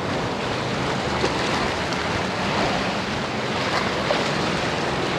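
Surf breaking and washing up the beach in a steady rush, with wind on the microphone.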